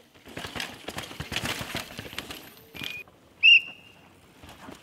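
Downhill mountain bike rattling over rocks and roots, a dense run of quick knocks for the first couple of seconds. Then two short whistle blasts, the second and louder one about three and a half seconds in: a trackside warning whistle for an approaching rider.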